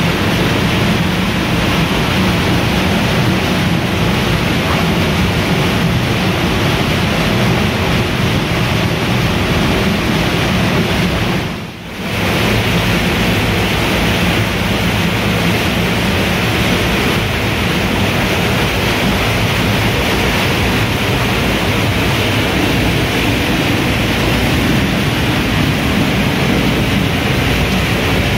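Floodwater rushing through a narrow cave passage and falling in a cascade into a pool, a loud steady rush of water from a cave in flood. It dips away briefly about twelve seconds in.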